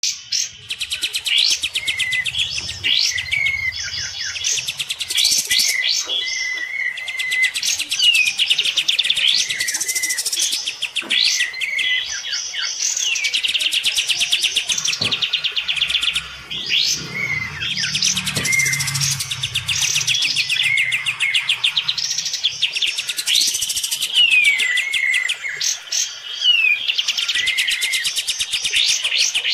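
Kapas tembak bulbuls singing loudly in quick, harsh chattering phrases, one phrase after another with no break. The song phrases and short whistled notes overlap, as in a song duel between two birds.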